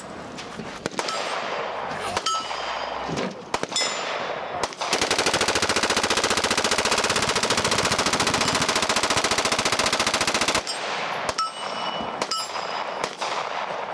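Slide Fire belt-fed AR-15 in .223 bump-fired in one continuous, very rapid burst lasting about six seconds. The burst starts about five seconds in and stops abruptly as the belt runs out. Scattered single gunshots come before and after it.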